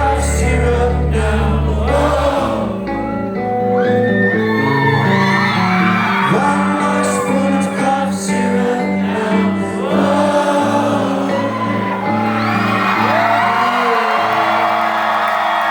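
Live rock band playing: sung vocals over sustained chords, the low bass note dropping out a couple of seconds in.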